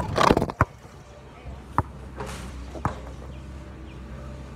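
A basketball striking the rim and backboard of an outdoor hoop in a short clatter, then bouncing on the ground twice more, about a second apart, each bounce weaker.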